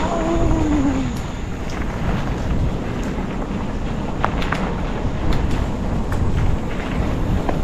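Wind buffeting the microphone over the rumble of a mountain bike rolling along a dirt trail, with scattered sharp clicks and rattles. A short falling squeak comes in the first second.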